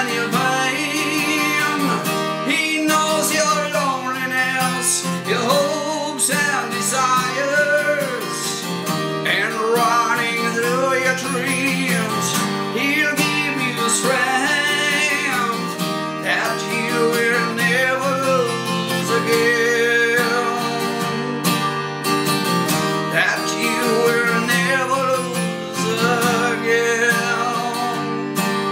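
Takamine acoustic guitar strummed steadily in a song, with a man's voice singing along over it.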